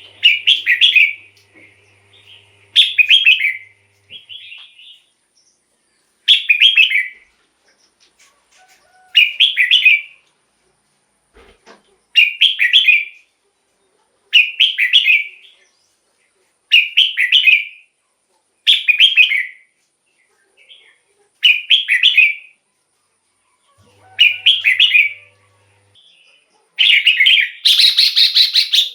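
Red-whiskered bulbul singing: short, loud phrases repeated about every two to three seconds with pauses between, the last one near the end longer and fuller.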